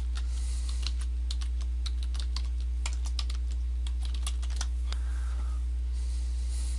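Computer keyboard keys typed in an irregular run, the clicks thinning out about two-thirds of the way through, over a steady low hum.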